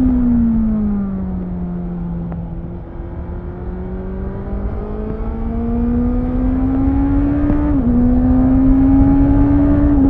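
Honda CBR650F inline-four engine heard from the rider's seat, falling in pitch as the bike slows for about two seconds, then pulling hard with the revs climbing. An upshift about eight seconds in drops the revs before they climb again.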